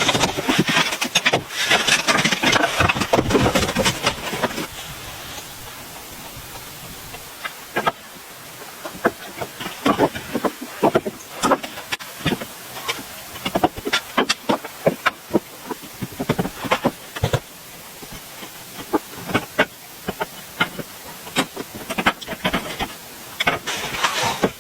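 A dense, rough noise for the first four seconds or so, then many irregular sharp knocks and taps over a quieter background.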